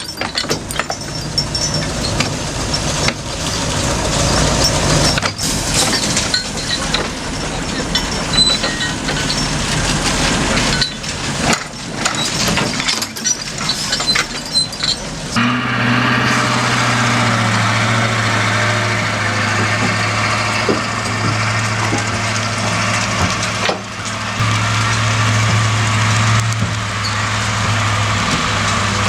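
Heavy diesel machinery running and working, with repeated clanks and knocks. About halfway through it changes abruptly to a steady engine note.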